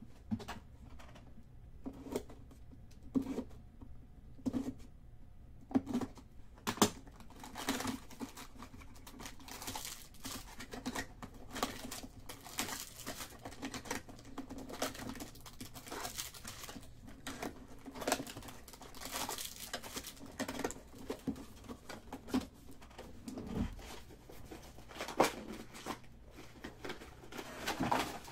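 Trading card packs and wrappers crinkling and tearing as they are opened, with repeated short rustles and taps of cards being handled.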